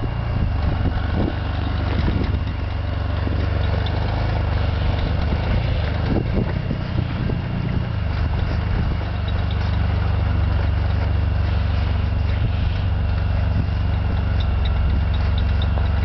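1997 Audi A6 Avant's engine running as the car edges forward through deep snow, with a thin steady whine over the rumble from a power steering pump that is failing. Scattered crunches and knocks come from the tyres and body working through the snow.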